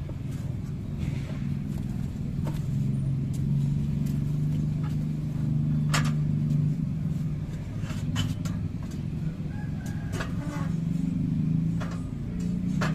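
An engine runs steadily, with a few sharp metal clanks as the steel winch is fitted onto the drilling rig's mast, about two and a half, six, eight and ten seconds in.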